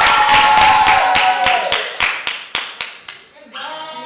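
A small group claps and cheers with high-pitched whoops. The clapping thins out and stops about three seconds in, and group voices start near the end.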